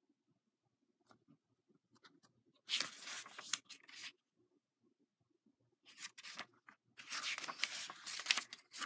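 Pages of a hardcover picture book being turned: two rustling sweeps of paper, the first about three seconds in and the second, longer one a couple of seconds later, with small ticks of handling between them.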